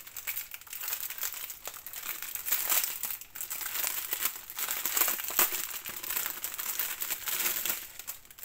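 Clear plastic bag crinkling and crackling as hands handle it and open it to get at the packets of diamond-painting drills inside, with many short sharp crackles.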